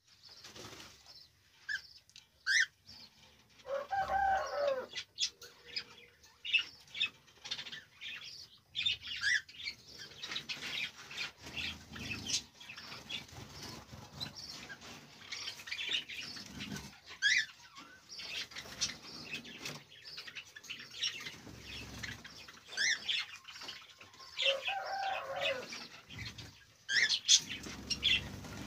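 Cockatiels in breeding cages chirping and calling in many short, high notes, with wings flapping. Two longer, lower calls stand out, one about four seconds in and one near the end.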